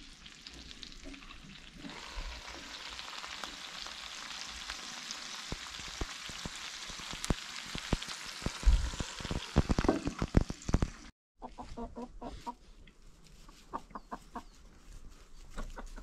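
Chicken pieces frying in a cast-iron skillet, a steady sizzle that grows louder about two seconds in. Loud knocks and clanks come near the middle as the glass lid is lifted off the pan. After a sudden cut, chickens are clucking.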